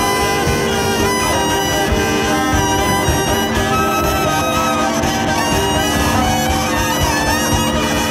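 Live experimental ensemble music of many held, overlapping tones at an even loudness, from double bass, a wind instrument and horn loudspeakers.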